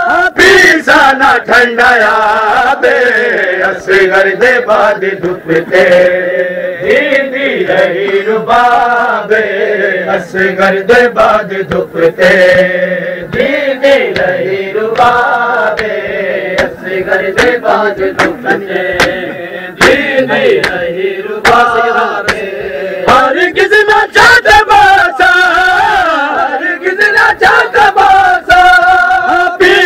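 Men chanting a Shia Muharram lament (noha) in a wavering, continuous melody, with many sharp slaps of chest-beating (matam) cutting through it.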